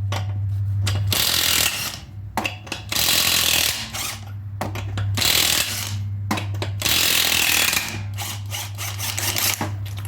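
Impact wrench hammering lug nuts loose on a 21 mm impact socket, in several loud bursts of one to two seconds each with short pauses between, over a steady low motor hum.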